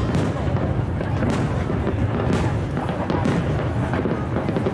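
Aerial fireworks shells bursting overhead in rapid succession: a dense, continuous rumble of booms with sharper cracks about once a second.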